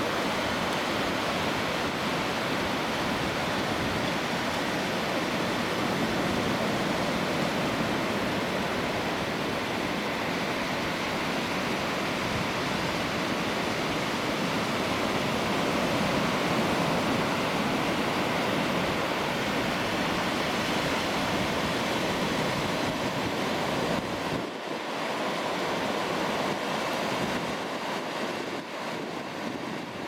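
Atlantic surf breaking on a sandy beach: a steady wash of waves, a little quieter near the end.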